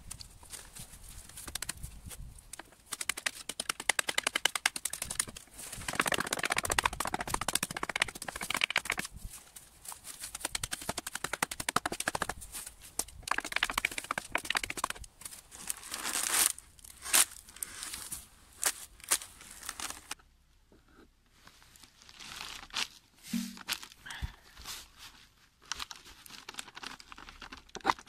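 Dry reed stems rustling and crackling as they are packed by hand into a wooden frame and pressed down with a wooden board. About two-thirds of the way through, the sound drops to sparse clicks and taps.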